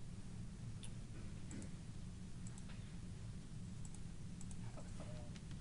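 A handful of separate computer mouse clicks, spaced out, over a low steady hum.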